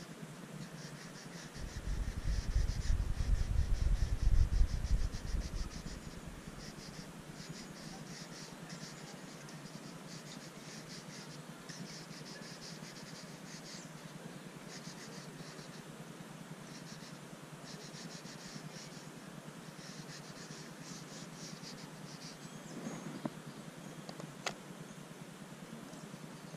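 Square pastel crayon (conte crayon) scratching across sketchbook paper in quick runs of short back-and-forth strokes that stop and start. A low rumble fills a few seconds near the start, and two faint clicks come near the end.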